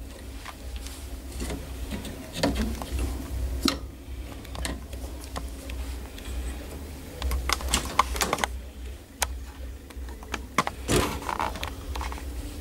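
Irregular clicks and taps of metal parts as a motherboard is slid into a BGA rework station's board holder and adjusted, with a denser run of clicks in the middle and a sharper knock near the end, over a low steady hum.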